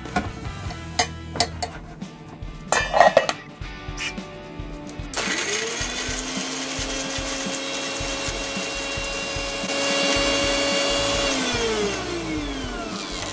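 Premier mixer grinder (Indian mixie) grinding chopped ginger and garlic into paste. First come a few knocks and clicks as the steel jar is handled. About five seconds in, the motor starts with a quick rising whine and runs steadily for about six seconds. Near the end it is switched off and winds down with a falling whine.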